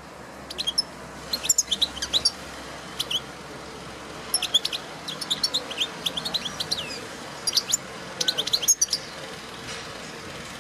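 European goldfinch singing: quick, high twittering chirps in five or six bursts, with short pauses between them.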